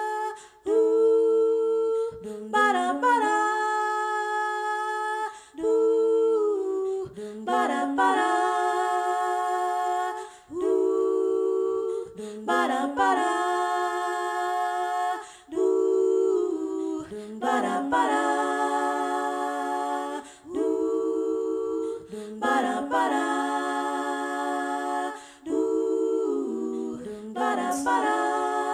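A cappella vocal harmony: several layered voices sing wordless chords, held for a couple of seconds each with a slide into each chord. The phrases repeat in a cycle of about five seconds, built up as a loop-pedal loop.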